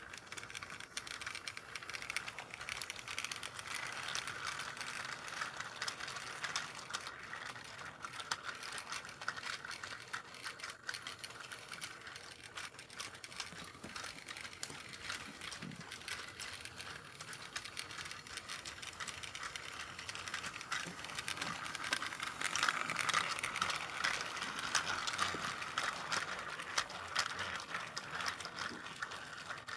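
Plarail toy C12 steam locomotive's small motor and gears whirring as it hauls five container wagons around plastic track, with a steady clatter of clicks from the wheels and gearing. It grows louder about 22 seconds in as the train passes close by.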